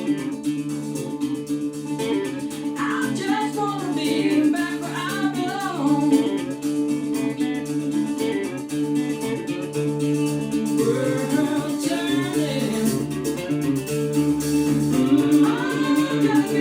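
A song played back over hi-fi speakers: plucked guitar with sustained backing notes and a solo voice singing a wavering melody that comes in about three seconds in.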